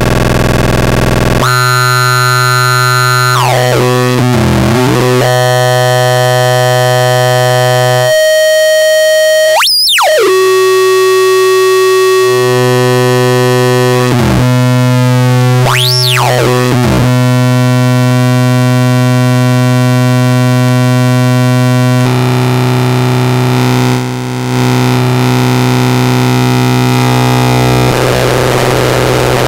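A steady, buzzing synthesizer drone on one low pitch, distorted through the PLXNA2 handmade 6CB6 vacuum-tube signal processor. Its tone changes as the knobs are turned: several sharp sweeps rise and fall through it, and near the end it turns noisier and hissier.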